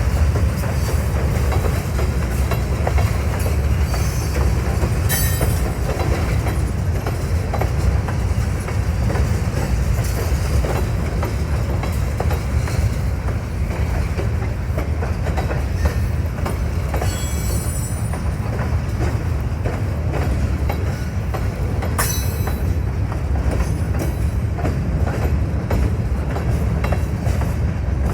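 Freight cars of a grain train rolling past, with a steady heavy rumble and wheels clacking over the rail joints. Brief high wheel squeals cut in about five seconds in, again near seventeen seconds and at twenty-two seconds.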